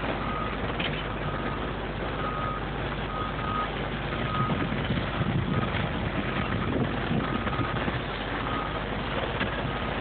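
Construction machine's backup alarm sounding short single-pitched beeps about once a second, over a steady rumble of machinery.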